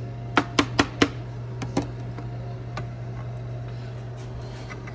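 A metal spoon knocking against a glass jar and a small bowl while scooping out blue cheese dressing: about six sharp clicks in the first two seconds. A steady low hum runs underneath.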